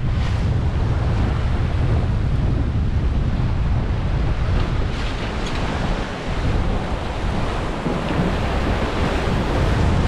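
Wind buffeting the microphone over the steady rush of breaking waves and the wake foaming past the stern of a Vancouver 34C sailing yacht in a rough sea.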